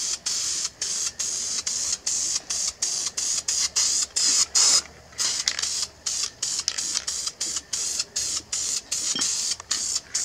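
Aerosol spray-paint can hissing in many short bursts, a couple to a few per second with brief gaps between them, as paint is sprayed onto a steel wheel rim.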